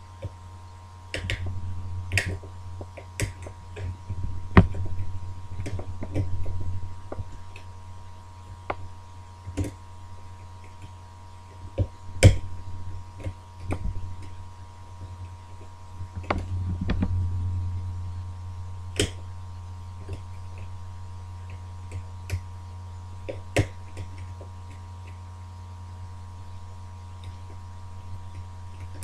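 Irregular small clicks and taps of a lever-lock pick and tension wire working the levers of an ERA multi-slot lever lock, over a steady low hum.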